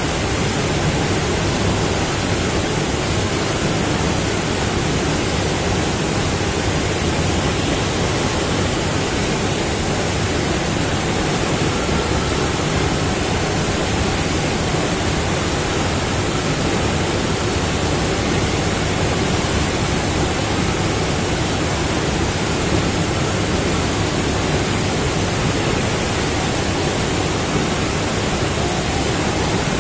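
Loud, steady rushing of a thin sheet of water pumped up the curved ramp of a surf simulator (a FlowRider-style standing wave), an even, unbroken sound of fast-flowing water.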